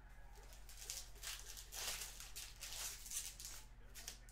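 Foil trading-card pack crinkling and tearing as it is ripped open, with cards rustling and sliding out: a run of short crisp rustles between about one and four seconds in.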